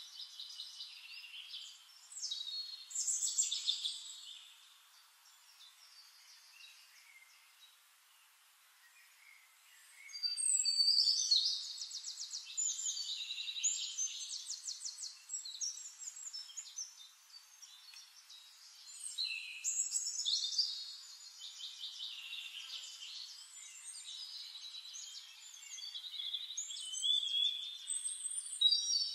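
Songbirds singing in bouts of fast, high trills and chirps, several birds overlapping, with a quieter lull of a few seconds after the first bout.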